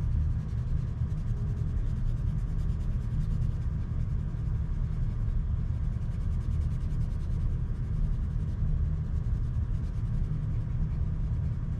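A steady low rumble of room noise is the loudest sound. Faintly under it, a green coloured pencil is shaded lightly across paper.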